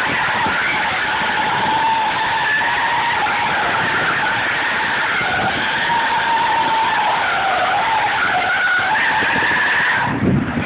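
Tyres of a Ford Lightning pickup squealing continuously as it drifts through doughnuts, a loud wavering squeal that cuts off near the end.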